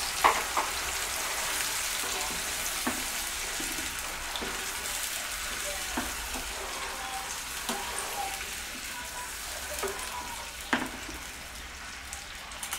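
Sweet and sour sauce cooking in a nonstick frying pan with a steady hiss, while a slotted spatula stirs it and knocks sharply against the pan several times, loudest just after the start and near the end.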